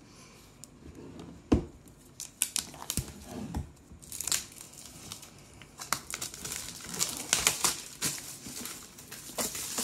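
Clear plastic shrink wrap crinkling and tearing as it is pulled off a cardboard product box. A few light handling knocks come first, then dense crinkling from about four seconds in.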